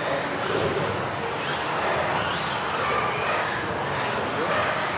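Several electric RC off-road race cars of the modified (brushless motor) class running together in a large hall, their motors whining up and down in pitch as they accelerate and brake, over a steady haze of tyre and hall noise.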